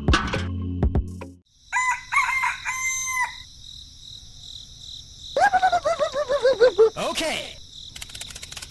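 Rooster crowing, then a second run of calls that fall in pitch, over a steady high-pitched tone. Music cuts off just over a second in, and a rapid clicking starts near the end.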